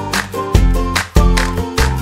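Upbeat background music with a steady beat and plucked guitar-like notes.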